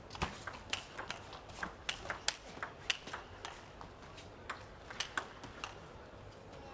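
Table tennis ball being struck back and forth in a rally: sharp ticks of the celluloid ball on the rubber bats and the table, a few every second.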